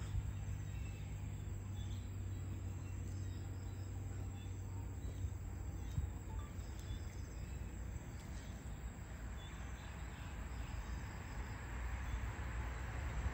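Outdoor yard ambience: a steady low rumble with faint, scattered high chirps, and a rushing noise that swells near the end.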